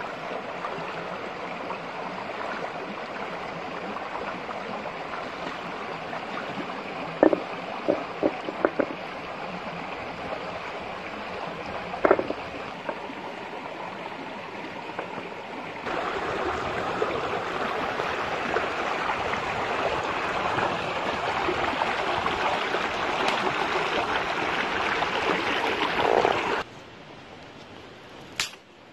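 Shallow rocky stream flowing, a steady rush of water. A few sharp knocks come about a quarter of the way in and one more a little later. The water gets louder about halfway through, then cuts off sharply near the end.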